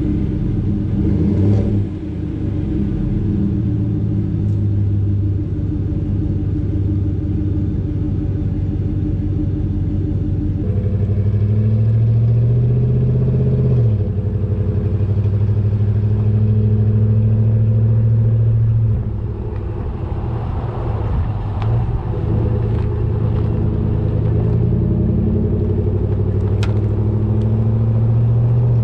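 Chevrolet Silverado's 5.3-litre V8 running steadily through an MBRP cat-back exhaust. Its pitch steps down about a third of the way through and briefly falls again a few seconds later, and the sound turns noisier in the second half.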